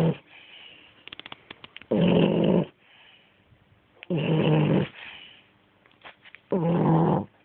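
French bulldog snoring loudly in its sleep: three rattling snores about two and a half seconds apart, each under a second long, with quick crackling clicks and softer breaths between them. This loud snore is typical of the breed's short, flat-nosed airway.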